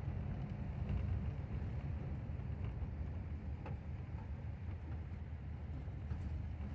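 Volkswagen Kombi van driving, heard from inside the cabin: a steady low rumble of engine and road noise.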